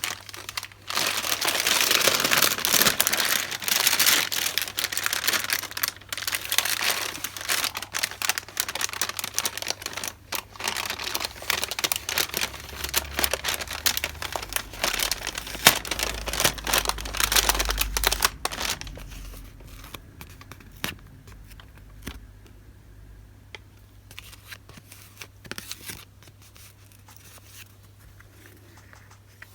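Paper and plastic packaging crinkling and tearing as a parcel is unwrapped by hand, dense for about the first twenty seconds, then quieter handling with scattered light taps.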